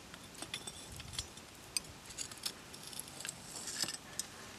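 Small, irregular clinks and clicks of metal pliers poking and rummaging among charcoal, ash and broken terracotta roof-tile shards.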